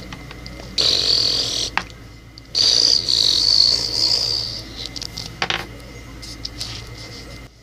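A child's mouth-made whooshing whistle, a flying sound effect for toy figures tossed through the air. It comes twice, a short one about a second in and a longer one of about two seconds, with a couple of light plastic clicks.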